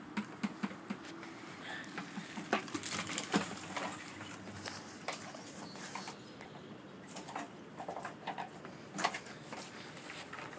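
Irregular light knocks, clicks and scrapes as an E/One grinder pump is lowered on a rope into its basin.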